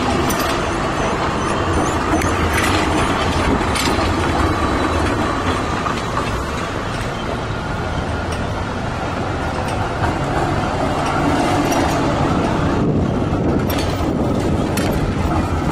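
Melbourne tram passing close on a city street, its steel wheels running on the rails, over steady traffic noise. A few short clicks and high squeaks are heard in the first few seconds.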